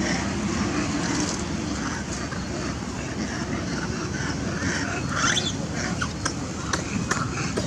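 Macaques giving short squeaks and calls over a steady low rumble, with a few sharp clicks near the end.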